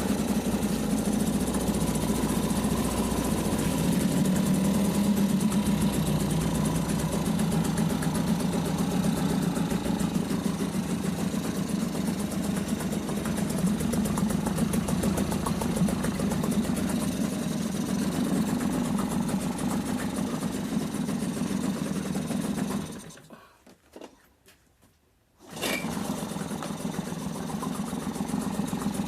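Small 3.5 hp Tohatsu outboard motor running steadily. Near the end it dies away to near silence for about two seconds, then is running again.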